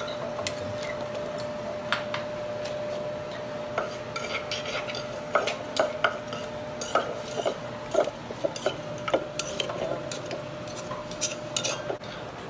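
A spoon stirring and scraping in a mortar, then a wooden pestle knocking and grinding in it with irregular strikes, mixing sugar into a pounded Lao chili sauce for tum khao poon.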